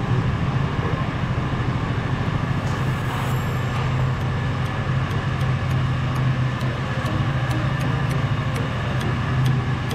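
A steady low mechanical hum, with a light regular ticking of about two ticks a second starting about three and a half seconds in.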